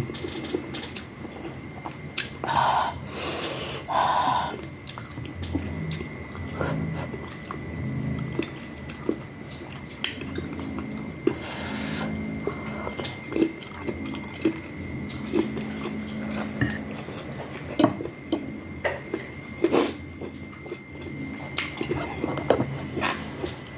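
Close-up eating sounds of spicy rice-noodle soup: chewing, wet slurps, and frequent small clicks of a spoon or chopsticks against a bowl. A faint steady high whine runs underneath.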